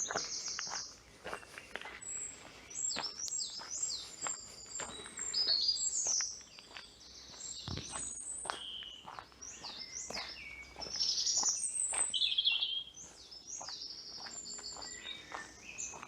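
Several small songbirds singing at once: a dense, busy chorus of quick high chirps, trills and warbling phrases.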